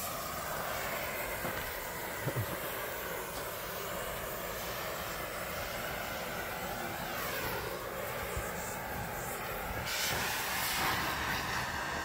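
Gas torch flame hissing steadily while it heats a carbon-clogged two-stroke muffler to burn the carbon out. The hiss turns brighter about ten seconds in.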